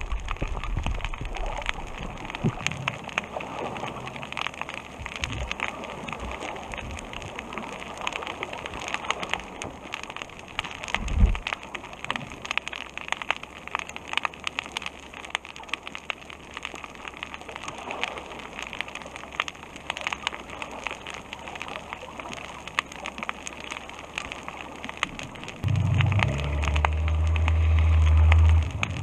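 Underwater reef ambience: a dense, steady crackle of tiny clicks, the sound of snapping shrimp. About three seconds before the end a low hum comes in, grows louder and cuts off suddenly.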